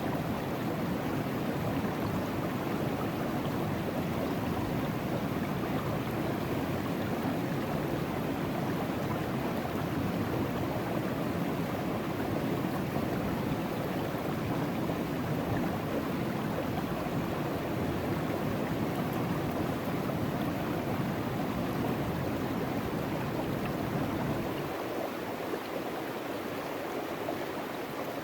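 Steady rush of river water running through a sluice box. About 25 seconds in, the low rumble drops away and the sound gets a little quieter.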